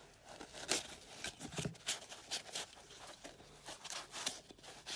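A cardboard box and its packaging being worked open by hand to get a new ignition coil pack out: a string of short, irregular rustles, scrapes and taps.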